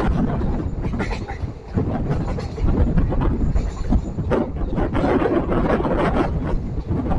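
Passenger train on the move: a steady rumble of the coaches' wheels on the rails, with scattered knocks and a short lull about one and a half seconds in.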